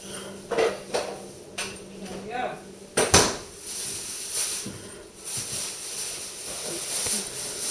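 A single sharp metallic clink of kitchenware about three seconds in, with faint voices and light clatter in the background.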